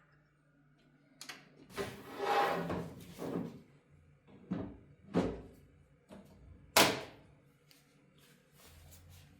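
A series of handling knocks and clunks, with a scraping rustle about two seconds in. The sharpest and loudest knock comes near the end.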